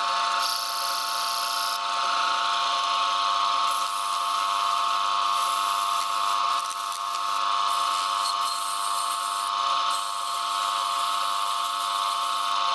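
Lathe running steadily with a whine of several steady tones. Sandpaper pressed against a spinning bamboo disc adds a hiss that comes and goes in stretches of a second or two.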